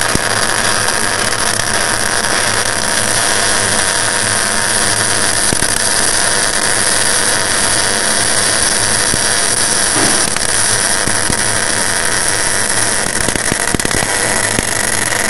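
Electric arc welder running a continuous weld, a steady loud hiss over a low hum, which stops at the very end.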